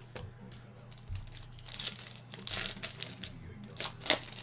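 Crinkling of a foil trading-card pack wrapper as cards are handled, in several short bursts of crackly rustling.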